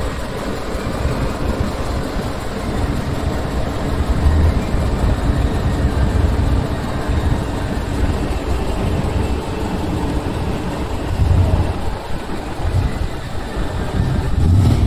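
Diesel engines of large trucks running, with the low rumble swelling louder about four seconds in and again about eleven seconds in.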